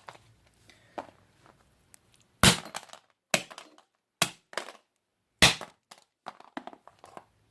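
A ZTE flip phone struck hard with a metal nail puller, crushing and breaking it. Two heavy blows land about two and a half and five and a half seconds in, with lighter knocks between them and a scatter of small cracks and clicks near the end.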